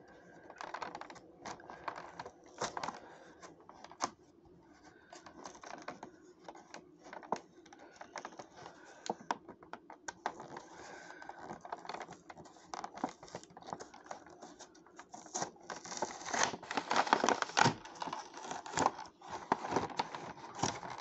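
Cardboard-and-plastic blister packaging of a Hot Wheels 5-pack being handled and opened by hand. Scattered light clicks and scratches come first. About three-quarters of the way through, a louder, busier stretch of scraping, crinkling and tearing follows as the pack is pried open.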